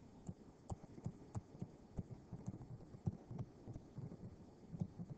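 Faint, irregular soft taps of a stylus on a tablet screen while an equation is handwritten.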